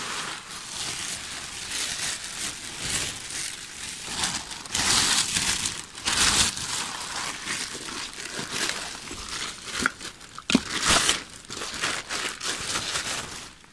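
Thin plastic sheet crinkling and rustling as gloved hands unfold it and spread it out, in uneven surges with the loudest crumpling about five to six seconds in and again about ten to eleven seconds in.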